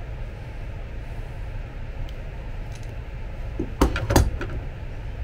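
Metal pliers clattering down onto a workbench: a short cluster of sharp metallic clinks about four seconds in, over a steady low background hum.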